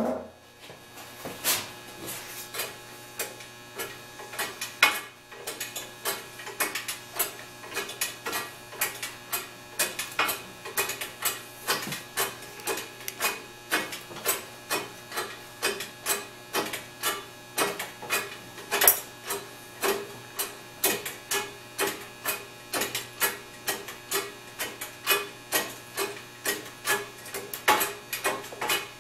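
OTC 25-ton hydraulic shop press being pumped up, a sharp click on each pump stroke at about two a second, as the ram bears down on its load.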